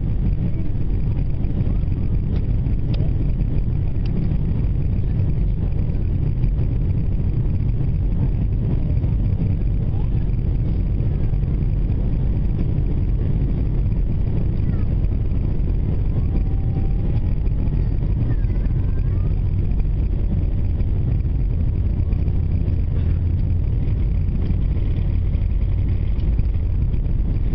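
Steady low rumble of an Airbus A321's jet engines and airframe heard inside the cabin from a seat over the wing while the airliner taxis on the ground.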